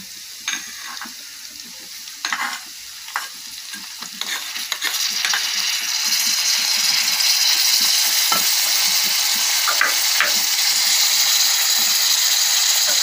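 Cauliflower florets frying in a hot metal pan as fresh green coriander goes in: a few light clinks of a utensil on the pan at first, then the sizzle grows louder about five seconds in and holds steady.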